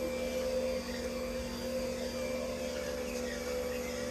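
Electric juicer's motor running with a steady, even hum.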